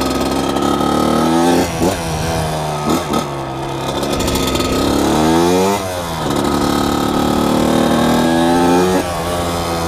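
1998 Kawasaki KX80 two-stroke dirt bike engine being ridden, its pitch rising and falling with the throttle: two quick revs in the first few seconds, then a longer climb that drops off about six seconds in, then steadier running with a couple of small shifts in pitch near the end.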